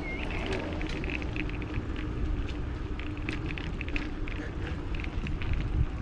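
Wind rumbling and buffeting on the camera microphone while cycling, with a faint steady hum and short high chirps throughout.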